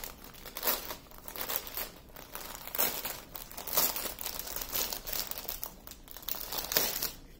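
Clear plastic wrapping crinkling in irregular rustles as a wrapped roll of diamond-painting drill bags is turned over and handled.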